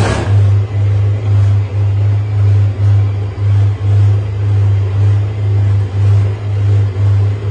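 Electric motor of a stainless steel feed mixer running under load, a loud low hum that swells and fades about three times a second as the paddle turns through the feed powder. A brief scrape right at the start.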